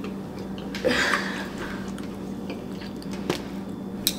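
Someone chewing a mouthful of frosted cake, with two short sharp utensil clicks near the end, over a steady low hum.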